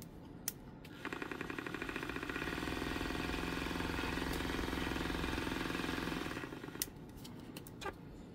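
Vortex Stirrer Turbo paint mixer running for about five seconds with a fast, even buzz as it spins and shakes a small jar of enamel paint. The buzz winds down, followed by a couple of light clicks as the jar is handled.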